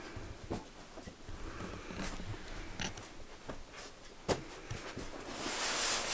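A tall cardboard guitar shipping box being carried and handled: scattered light knocks and taps, then a louder scraping rustle of cardboard near the end as the box is stood upright.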